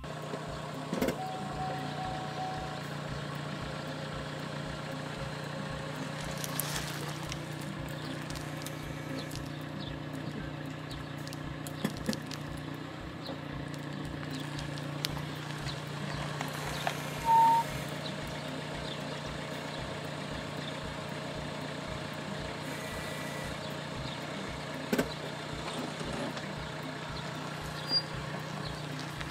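A car's engine running steadily at low speed, with a few sharp clicks along the way and a brief high tone about halfway through.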